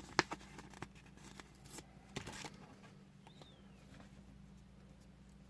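Small clicks, taps and rustling of hands handling plastic toy parts and a sticker sheet while stickers are peeled and pressed on, with a sharper tap just after the start. The second half is quiet room tone.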